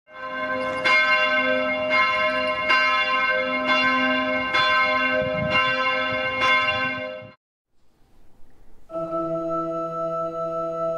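Church bells ringing, with strikes about once a second, cut off suddenly after about seven seconds. After a brief near-silence, a steady held chord begins on the chamber organ and clarinet.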